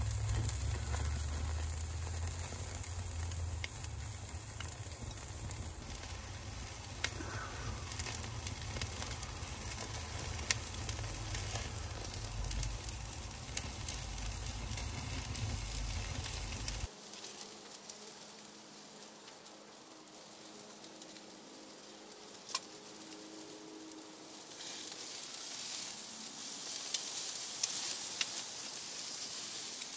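Ribeye steak sizzling on a grill over oak embers, with scattered sharp pops and crackles. A low rumble under the sizzle stops abruptly partway through, and the sizzle grows louder near the end.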